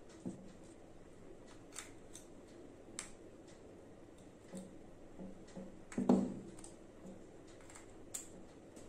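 Small clicks and light knocks of plastic LED bulbs being handled and fitted into a lamp holder, with one louder dull knock about six seconds in.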